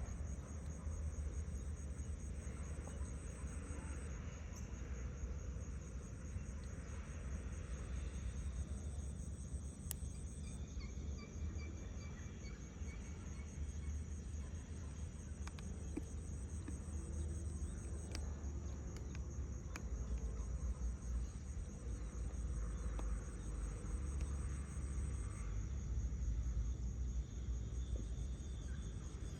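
Insects trilling steadily, a high, rapidly pulsing drone, with a second higher trill starting and stopping every few seconds, over a constant low rumble.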